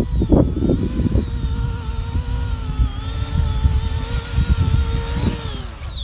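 The electric motors and propellers of an E-flite Convergence VTOL model aircraft whine at a steady pitch while it sets down, then spool down with a falling pitch near the end. Strong wind buffets the microphone throughout.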